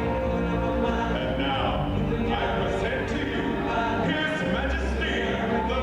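A choir singing with instrumental backing and a steady bass line, held notes shifting in pitch.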